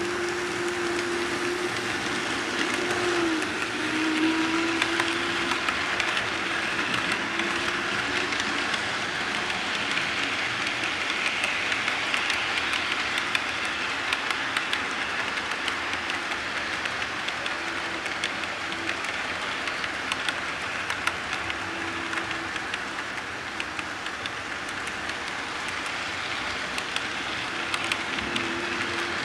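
HO scale model freight train rolling past, a kitbashed Reading N-1 2-8-8-0 locomotive built from a Proto 2000 2-8-8-2 pulling boxcars and hoppers: a steady rolling rush of wheels on the rails with many fine clicks at the rail joints. A steady hum from the locomotive's motor is heard for the first several seconds, dipping briefly in pitch about three seconds in, then only now and then.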